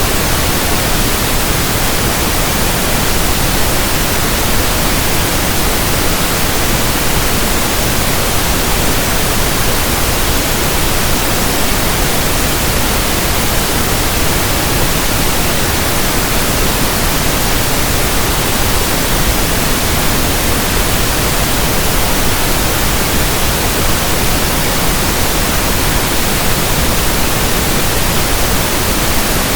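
Steady, unbroken pink noise, an electronically generated hiss spread evenly across the whole range, with no change in level.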